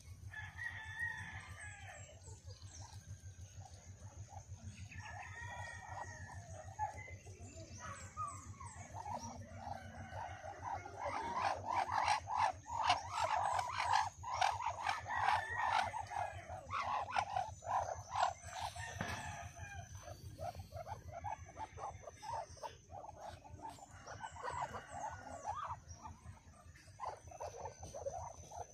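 Farmyard poultry calling, with a loud, dense run of calls in the middle.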